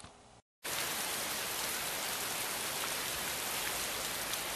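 A steady, even hiss that starts abruptly about half a second in, after a moment of silence, with a few faint ticks in it.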